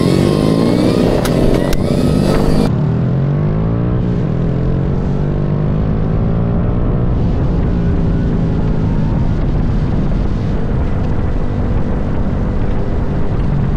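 Motorcycle engines running and revving, rising and falling in pitch, with wind rushing over the microphone. In the first two seconds a couple of sharp pops come from a Roman candle firing off the handlebars.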